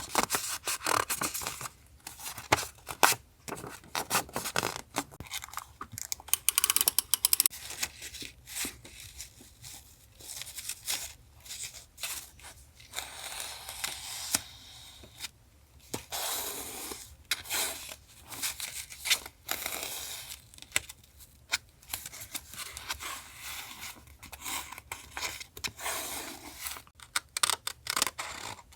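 Close-up paper handling for a collage journal page: paper being torn and rustled, with scattered small clicks and taps in an irregular stream.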